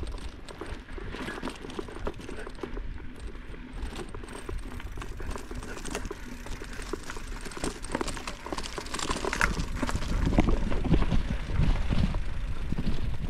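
Mountain bike rolling over a rough dirt trail: an uneven rattling and clatter from the bike and its tyres, over a low rumble of wind on the microphone. It gets louder about ten seconds in.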